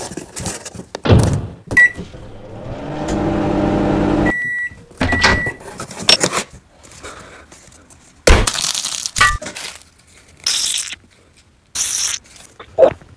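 Microwave oven sounds: a beep, about two seconds of rising hum while it runs, then two short beeps as it finishes. Later, a few short hissing squirts as a piping bag is squeezed.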